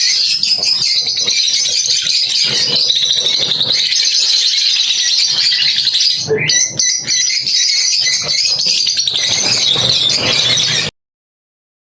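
Many small cage birds chirping and chattering at once, a dense high-pitched twittering. There is a brief break about six seconds in, and the sound cuts off abruptly about a second before the end.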